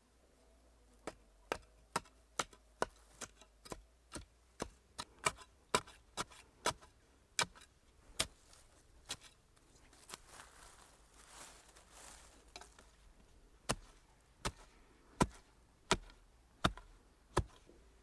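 A wooden stick tamping earth around a bamboo fence post: a long run of sharp strikes about two a second. Near the middle there is a short soft scraping of hands brushing the loose soil, and then about six more strikes.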